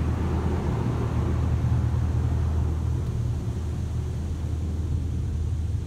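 Car engine running with a steady low rumble as the car rolls slowly forward, heard from inside the cabin.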